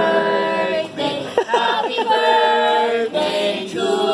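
A small group of voices singing together, unaccompanied, in long held notes with a couple of short breaks between phrases.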